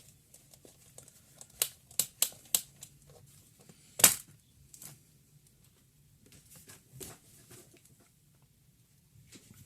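Small clicks and taps of tools and plastic parts being handled while a laptop is taken apart. There is a quick run of four sharper clicks, and a loud sharp snap about four seconds in.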